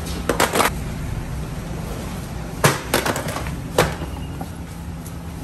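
Metal baking trays knocking and clanking in a few sharp hits, a pair about half a second in, a cluster near the middle and one more shortly after, over a steady low hum.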